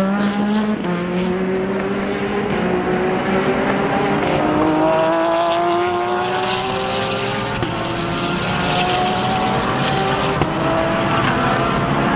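Porsche 911 GT3 R race car's flat-six engine accelerating hard through the gears. The engine note climbs steadily, then drops back at each quick upshift, several times.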